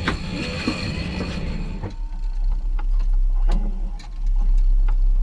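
A steady high whine over busy noise, which cuts off about two seconds in. After that, wind rumbles heavily on the microphone, with scattered sharp clicks.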